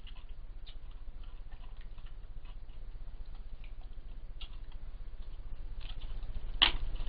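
European badger eating from a plastic dish: scattered small clicks and crunches, with one sharper click near the end, over a low steady hum.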